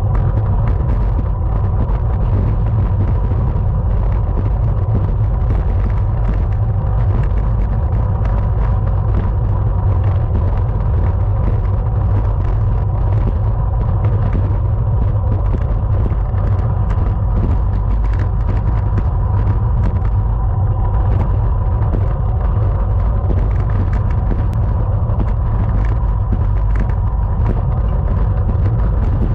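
Steady wind rush and road rumble on the microphone of a camera riding along in a bicycle criterium, with a faint steady whine above it.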